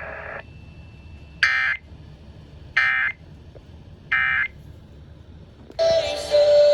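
Three short bursts of Emergency Alert System digital data tones, each about a third of a second long and about 1.4 s apart: the End of Message code that closes an EAS warning. Music starts near the end.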